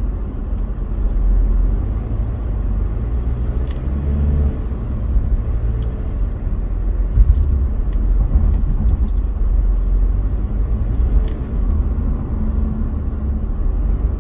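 Car driving steadily along an expressway: a continuous low rumble of road and engine noise, with a few faint ticks.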